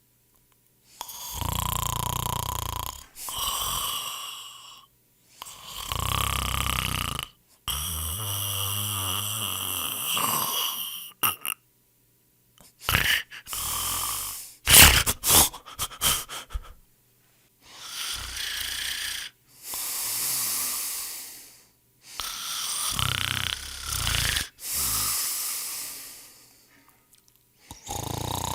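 A person snoring: a string of loud snores, each one to three seconds long with short quiet gaps between them, and a quick run of shorter, sharper sounds about halfway through.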